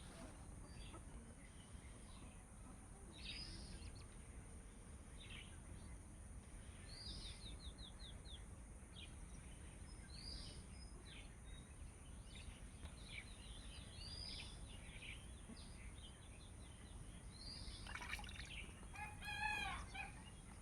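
Birds calling over faint outdoor background noise: short high calls that drop in pitch, repeating every few seconds, with a brief trill partway through. Near the end comes a quick run of lower repeated calls.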